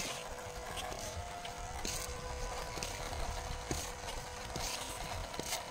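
Electric motor and gearbox of an RC off-road crawler whining steadily as it drives, with a few faint ticks.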